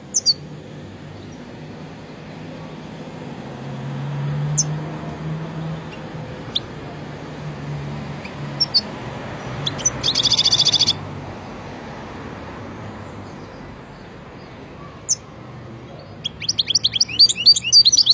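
Caged goldfinch × canary hybrid (mule) singing: scattered single high chirps, a rapid one-second trill about ten seconds in, then a quickening run of song notes that builds near the end.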